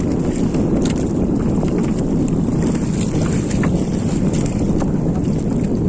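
Steady wind rumble on the microphone over water washing against a small outrigger boat, with a few faint clicks from the net being hauled in by hand.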